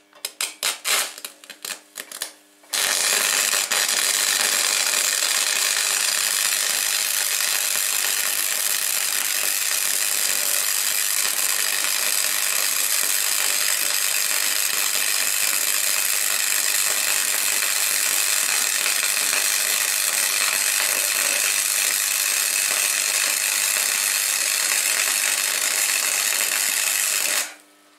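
Gasless wire-feed (MIG) welding arc running 0.9 mm flux-cored wire on steel plate: a few short bursts as the arc strikes, then a steady run of about 25 seconds that stops shortly before the end.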